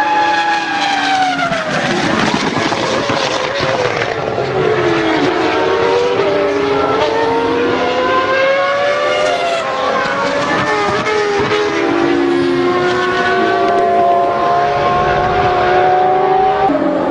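Several go-kart engines running on an indoor track, their pitch rising and falling as the karts accelerate and slow through the corners, overlapping one another.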